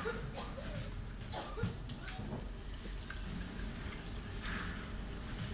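A few sharp knocks and clicks, then a tap running briefly into a sink, in a small room over a steady low electrical hum.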